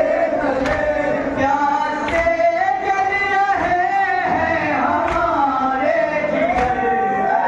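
A noha chanted by a male reciter over a microphone, with men's voices joining in, and a regular beat of matam (chest-beating) marking the rhythm.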